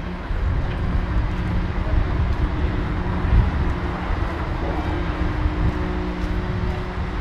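Street traffic: vehicle engines running, a steady low rumble with a constant engine hum.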